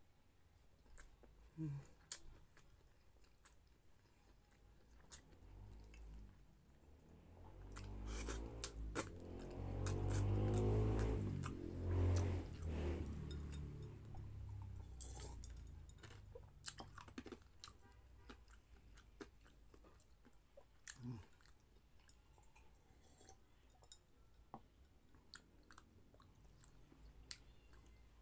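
Close-miked chewing of pork menudo, with scattered wet mouth clicks and smacks. In the middle there is a louder, low stretch while he drinks from a glass.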